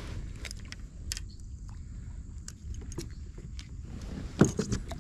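Small metal clicks and jingles from a snap clip and ring on a coiled lanyard being handled, over a steady low rumble, with a louder brief knock about four and a half seconds in.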